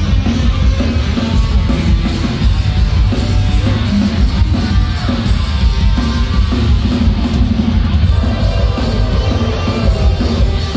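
Hardcore punk band playing live through a venue PA, heard loud from within the crowd: pounding drums, bass and distorted guitars, heavy in the low end.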